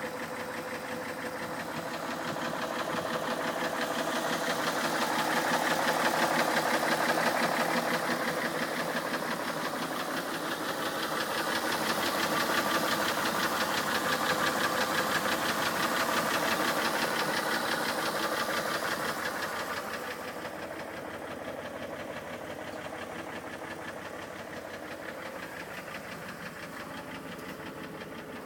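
A vehicle engine running with a fast, even knocking tapping along with it, the strange knock in question. It grows louder twice and drops back near the end.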